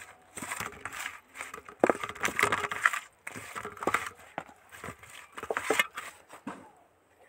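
Hands squishing and turning small raw mourola fish coated in salt, chilli powder and turmeric on a steel plate: wet squelching and slapping in irregular bursts, dying away near the end.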